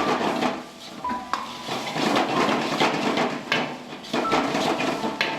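Metal spatula clanking and scraping against a wok as vegetables are stir-fried. Many quick irregular strikes sound over a steady sizzle.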